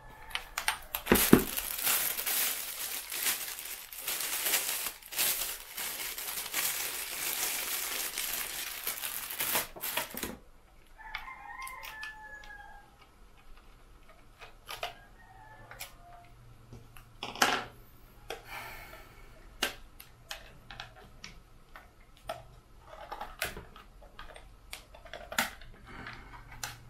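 Plastic packaging crinkling and rustling for about ten seconds, then scattered clicks and knocks of plastic parts as a drone's folding remote controller is handled. A rooster crows faintly in the background about eleven seconds in.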